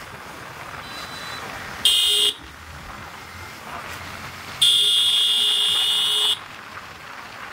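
A horn sounds twice over steady riding noise: a short beep about two seconds in, then a longer blast of nearly two seconds about four and a half seconds in, each a steady, shrill tone.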